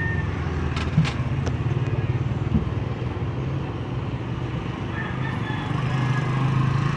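Motorcycle engine running steadily, with a low hum that swells near the end, over general street traffic noise, with a couple of brief clicks about a second in.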